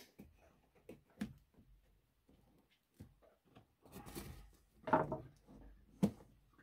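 A cardboard parcel being cut open with a knife: scattered scrapes, taps and rustles of the blade and the box, with a longer scraping, rustling stretch about four to five seconds in and a few sharp knocks.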